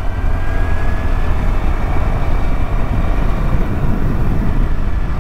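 Scooter riding along the road: heavy wind rumble on the microphone over the engine and tyre noise, with a faint whine rising in pitch in the first second or so.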